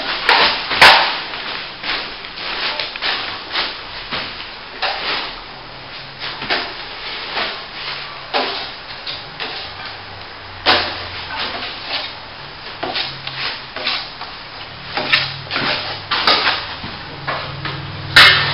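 Plastering tools scraping and working wet base-coat plaster in many short, irregular strokes, with a sharp knock about a second in and another near the end.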